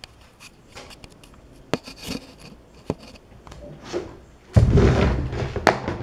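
Handling noise close to the microphone: quiet rubbing with a few sharp clicks, then a louder rustle with a low rumble about four and a half seconds in.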